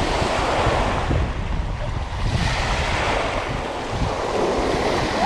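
Small waves breaking and washing over the sand in the shallows, with wind rumbling on the microphone.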